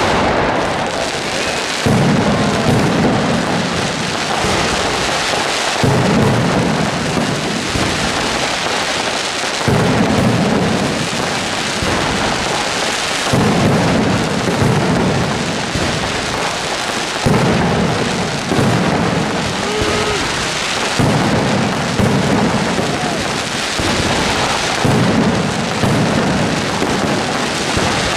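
Mascletà firecrackers by Caballer FX: a dense, continuous barrage of bangs and aerial salutes going off overhead, with a fresh, louder volley starting about every four seconds.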